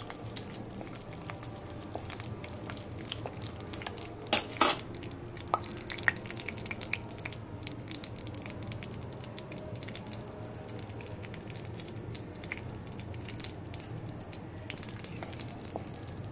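Cashews frying in ghee in a kadhai on very low heat: a steady scatter of small crackles and pops, with a couple of louder clicks about four and a half seconds in.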